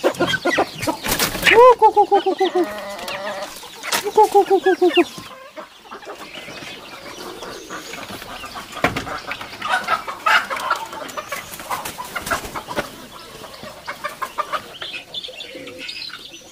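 Chickens clucking, with a hen cackling in quick repeated runs of calls for the first five seconds. After that it goes quieter, with scattered chirps, and ducklings peeping near the end.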